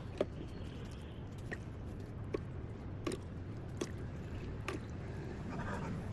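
Light clicks and taps, about six spread over a few seconds, over a low steady hum: small parts of a diecast model bus being handled during cleaning.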